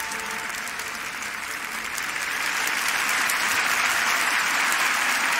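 Audience applauding, building louder about two to three seconds in and then holding steady.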